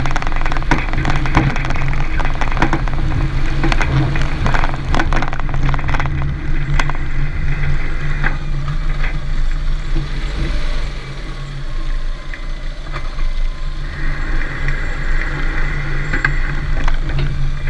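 Renault Duster 4x4 driving with a steady low drone, with repeated knocks and rattles from the front passenger-side suspension. The noise persists even after new strut mount kits (bump stops, boots, top mounts), a new stabilizer link and new anti-roll bar bushings.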